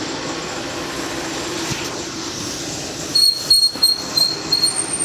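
A motor-driven machine running with a steady hum, and a quick run of five or six sharp high-pitched squeaks about three seconds in.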